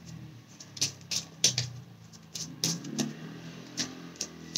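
Tarot cards being shuffled and handled: an irregular series of light, sharp clicks and snaps.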